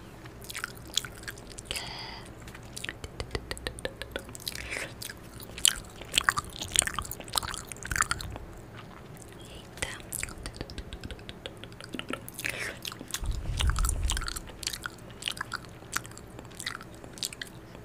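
Close-miked ASMR mouth sounds: rapid wet clicks, smacks and mock chewing and biting right at the microphone. A low rumble comes in about two-thirds of the way through.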